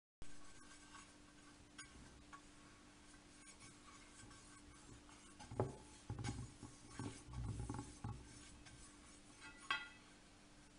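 Pastry brush rubbing oil over a pan: faint scratchy brushing with small clinks, and a few soft knocks and bumps in the middle.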